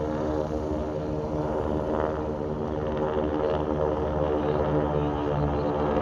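Six SNJ/T-6 Texan trainers flying over in formation, their Pratt & Whitney R-1340 nine-cylinder radial engines and propellers droning together in a steady, layered drone that slowly grows louder.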